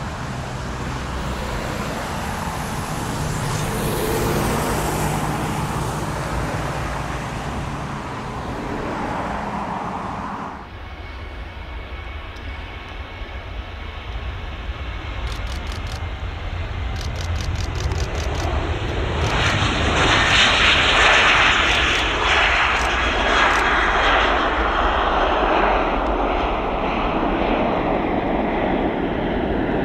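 Boeing 737 twin-jet engines running as the airliner taxis. About a third of the way in the sound cuts to the takeoff: the engines at takeoff thrust grow louder to a peak about two-thirds in as the jet rolls past and lifts off, then hold strong as it climbs away.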